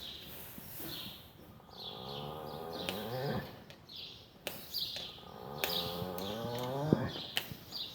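A sleeping horse snoring: two long, drawn-out snores a few seconds apart, each rising in pitch and ending abruptly. Small birds chirp in the background.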